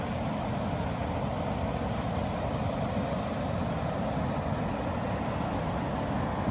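Steady rushing of river water, an even noise with a low rumble beneath it.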